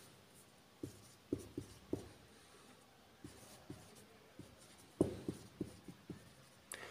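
Marker pen writing numbers: faint short strokes and taps of the felt tip, a few in the first two seconds, then a quicker run of them about five seconds in.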